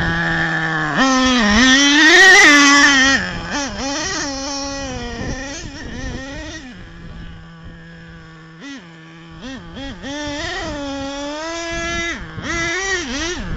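Nitro-powered radio-controlled monster truck's small glow engine revving up and down in quick rises and falls, dropping to a steady idle a few times. It is loudest in the first few seconds and fainter in the middle.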